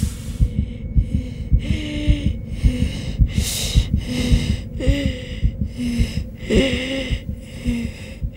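Quick, hissing breaths drawn through a respirator mask, about two a second, over a low throbbing pulse like a heartbeat.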